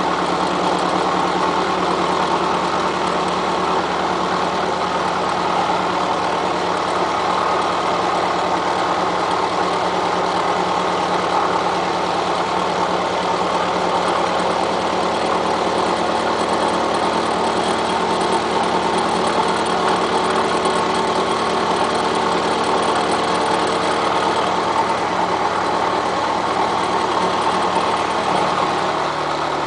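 Milling machine running with its cutter taking a cut on railroad-rail steel, a steady, unbroken machining noise. The low hum of the machine drops slightly in pitch near the end.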